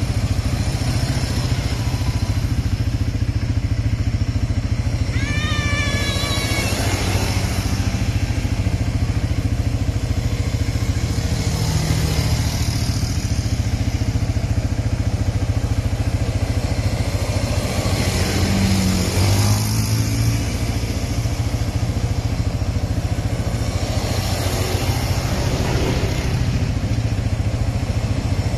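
Honda ATV engines running steadily as a line of four-wheelers rides past, with one engine revving up a little over halfway through. A short, wavering high tone sounds about five seconds in.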